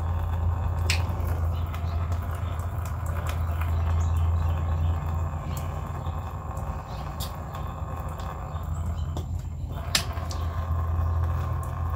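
Steady low mechanical hum from an unseen machine, weakening for a couple of seconds midway, with scattered faint ticks over it.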